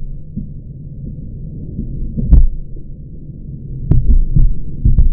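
Muffled, dull thumps at irregular intervals over a steady low rumble, with no high sounds at all, as if the microphone were covered or the sound filtered; the strongest thumps come about two and a half seconds in and twice near the end.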